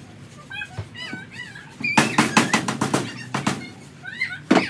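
Claw hammer knocking a new timber strut into a caravan's wooden wall frame: a quick run of about ten blows over a second and a half, then one more near the end. High wavering chirps come before and between the blows.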